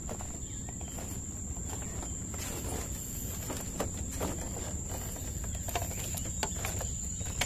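Steady high-pitched insect trill, a cricket, over a low outdoor rumble, with scattered faint clicks and taps.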